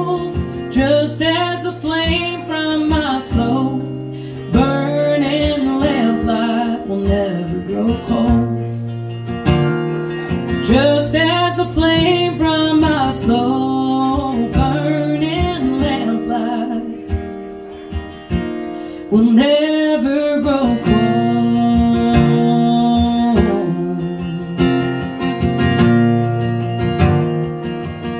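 A woman singing a slow song live to her own acoustic guitar, in several drawn-out, wavering phrases, with the guitar playing on alone near the end.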